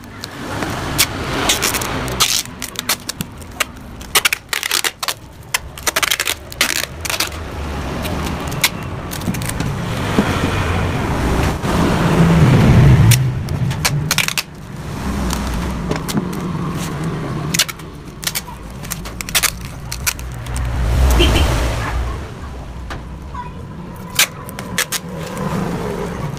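An engine running and revving up and down, swelling loudest about halfway through and again near the end, with many sharp clicks and knocks over it.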